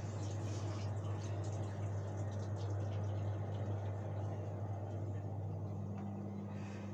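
Old Indesit washing machine running, a steady low hum with a faint churning rustle and a few light clicks; a second, higher hum joins near the end.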